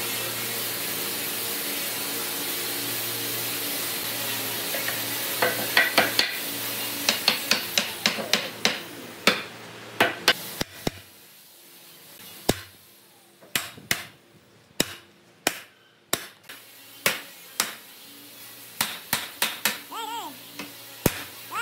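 An electric power tool runs steadily and stops about ten seconds in. Sharp, irregular hammer knocks on wood begin about five seconds in and go on to the end.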